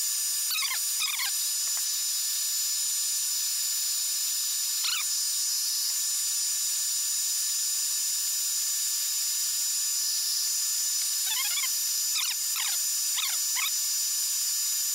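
Electric hot-air blower running steadily, a hiss with a thin high whine, heating the iPad 2's shattered glass to soften the adhesive beneath it. A few short, high, falling squeals sound over it: about half a second in, around five seconds, and several close together near the end.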